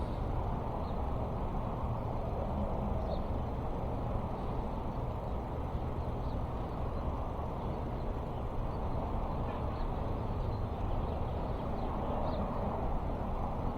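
Steady low background noise with no clear pattern, with a few faint, short high chirps scattered through it.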